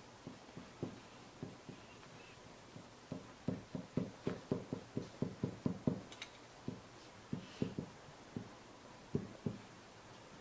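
Tip of a heated nakwha iron dabbed again and again onto hanji paper to stipple foliage, making soft taps. A few come early, then a quick run of about four or five a second in the middle, then sparser taps near the end.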